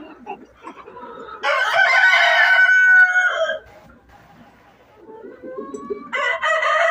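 A rooster crows, a loud call lasting about two seconds starting about a second and a half in, and another crow begins near the end; hens cluck softly in between.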